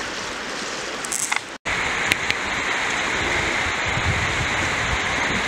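Steady rush of a shallow river flowing over a stony bed. The sound drops out for an instant about a second and a half in and comes back a little louder.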